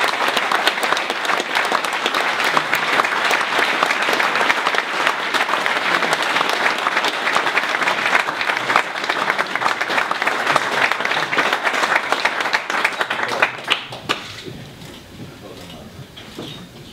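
Audience applauding steadily, dying away to a few last claps about fourteen seconds in.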